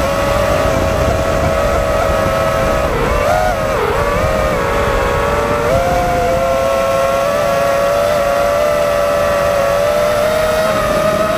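FPV drone's brushless motors and propellers whining, the pitch shifting with throttle: it dips twice around three to four seconds in and steps up a little before six seconds. A low rushing noise runs underneath.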